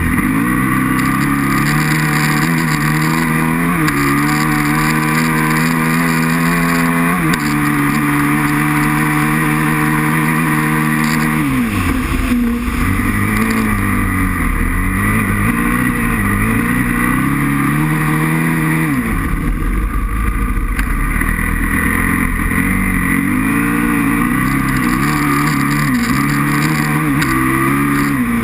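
Aprilia RXV 550 V-twin engine heard close up while riding: it pulls at steady revs with its pitch stepping up about four and seven seconds in. Around twelve and again around nineteen seconds in the revs drop sharply, then rise and fall repeatedly.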